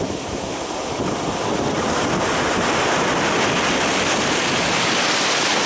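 Rough surf breaking and washing up a sandy beach, one long wash of water that builds over several seconds, with strong wind buffeting the microphone.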